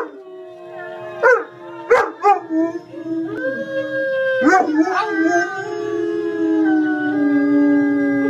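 German Shepherd howling: a few short sliding yelps in the first half, then one long howl held from about the middle, slowly dropping in pitch.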